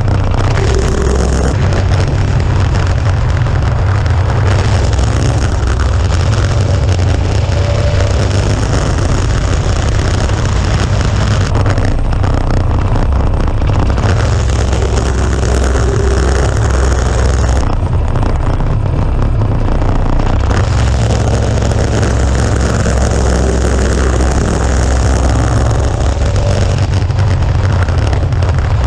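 Tecumseh 5 hp single-cylinder four-stroke go-kart engine running steadily on a test run of a newly fitted centrifugal clutch.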